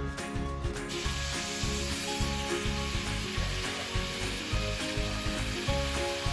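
Battered chicken pieces deep-frying in hot oil in a pot: a steady sizzle that sets in about a second in. Background music with a beat plays under it.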